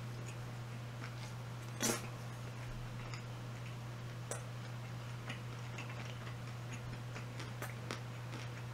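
Quiet eating sounds: scattered small mouth clicks and ticks while chewing, one sharper click about two seconds in, over a steady low hum.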